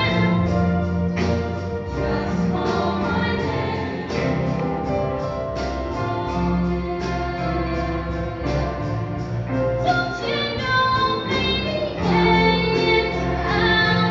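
High school choir singing, with some voices amplified through stage microphones, over an instrumental accompaniment with a steady beat.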